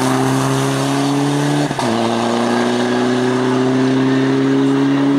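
Mitsubishi Lancer Evolution IX rally car's turbocharged four-cylinder engine pulling hard under acceleration, with one quick upshift about two seconds in, after which the revs climb steadily again.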